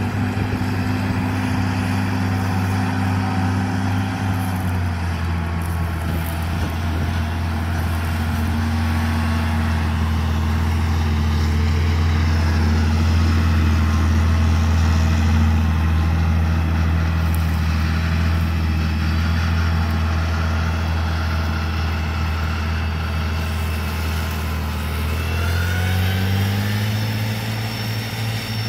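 John Deere tractor's diesel engine running steadily under load while mowing hay with disc mowers. The engine note shifts about five seconds in and rises near the end.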